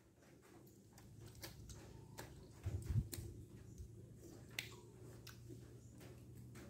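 Faint, scattered clicks and smacks of mouths eating soft star apple flesh, with a dull low thump about three seconds in.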